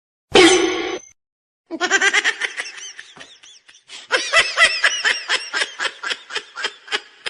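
A person laughing in a long run of quick, repeated bursts, louder from about halfway through, after a short loud voice-like call right at the start.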